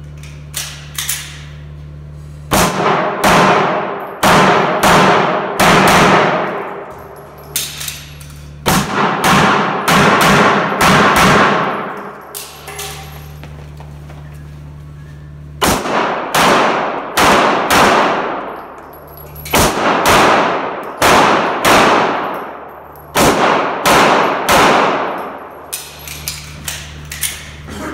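Semi-automatic pistol fired in rapid strings, about forty shots in five bursts broken by short pauses as the shooter moves between positions. Each shot rings with a long echo off the walls of the indoor range.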